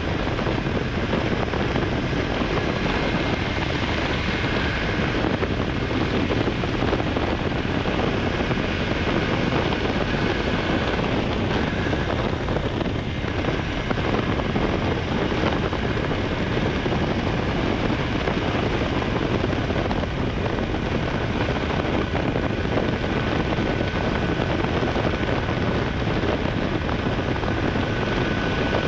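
Honda Hornet 900's inline-four engine running steadily under way, mixed with wind rushing over the camera microphone.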